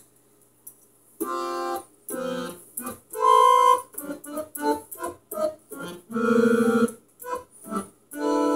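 Organ keys struck by a small dog's paws, sounding uneven, unrhythmic bursts of notes and chords, some held for about half a second. They start about a second in.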